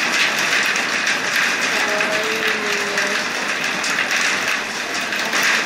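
Steady, loud hubbub of a crowd of people talking, with one voice briefly standing out about two seconds in.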